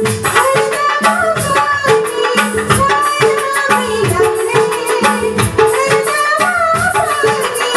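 A woman singing a Nepali folk (dohori) song live into a microphone, her melody gliding and ornamented, over a steady hand-drum rhythm and sustained backing notes from the band.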